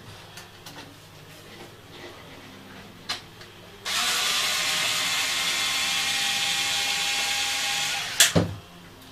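Small cordless screwdriver running steadily for about four seconds against a wooden music-box frame, then stopping with a couple of sharp knocks. Light handling clicks come before it.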